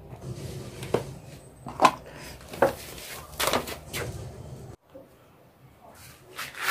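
Kitchen handling sounds: about five sharp knocks and scrapes of utensils and food being worked, then a sudden drop to a quieter stretch about two-thirds of the way in, with a few faint clicks near the end.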